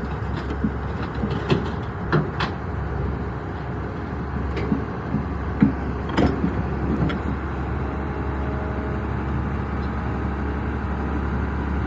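Excavator's diesel engine running with a steady low drone, with several sharp knocks and clanks in the first half that then give way to steady running.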